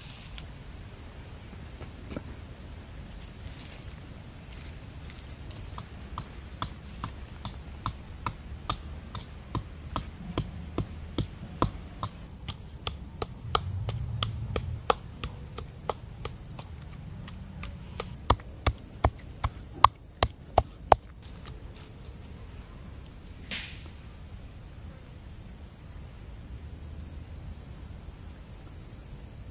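A steady high insect chorus throughout. From about six seconds in until about two-thirds of the way through, a pestle pounds in a small mortar about twice a second, with the loudest strikes near the end of that stretch.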